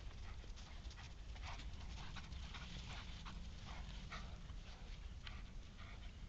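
Newfoundland dogs panting faintly in short, irregular breaths.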